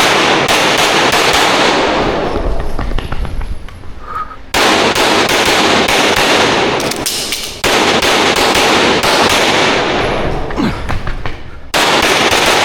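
Rapid pistol fire in strings of quick shots, restarting sharply after brief lulls about four and a half, seven and a half and twelve seconds in.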